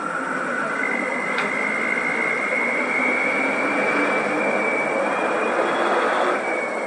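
Ashok Leyland diesel bus engine running as the bus pulls away, with a high whine that climbs slowly in pitch and fades about six seconds in.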